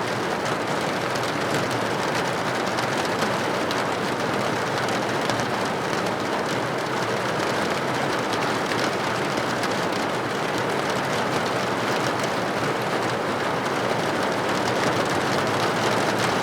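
Heavy rain falling steadily: a dense, even hiss of drops with many small taps.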